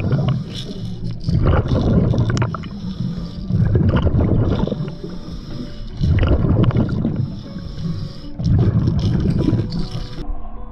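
Scuba diver's exhaled bubbles rumbling out of the regulator, heard underwater, in bursts about every two seconds with quieter breathing gaps between.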